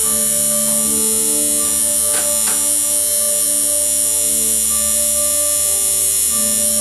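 Electric tattoo machine buzzing steadily as the needle works into the skin of a forearm, over background music.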